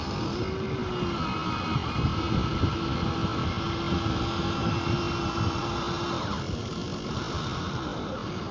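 Small electric motor of a radio-controlled model vehicle running with a steady whine over a rough rumbling noise; the whine stops about six seconds in.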